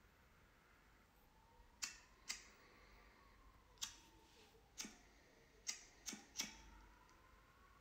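Seven quiet, sharp clicks at irregular intervals, three of them in quick succession near the end, over a very quiet background with a faint tone that slowly rises and falls.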